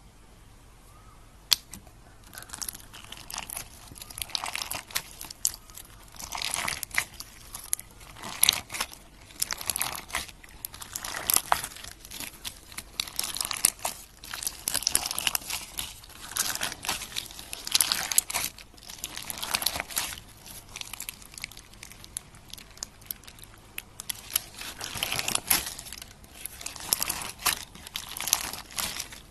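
Slime being squeezed and kneaded by hand, making crackling, popping sounds with sharp clicks in irregular bursts.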